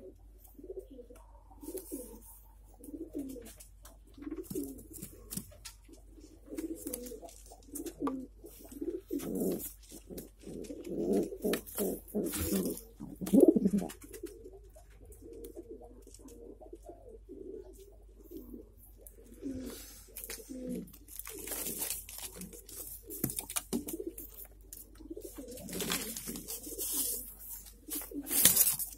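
Domestic pigeons cooing over and over in a nest box, with bursts of rustling between the calls in the second half.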